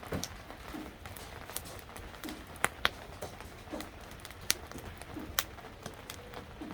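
Burning firewood crackling, with sharp irregular pops and snaps over a low hiss; the loudest are two snaps close together a little before the three-second mark.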